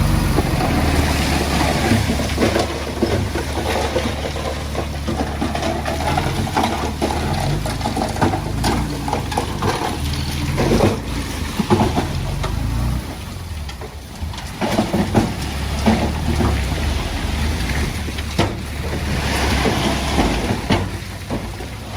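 Komatsu D20A bulldozer's diesel engine running under load, with irregular clanks and knocks from its steel tracks and the stone it pushes.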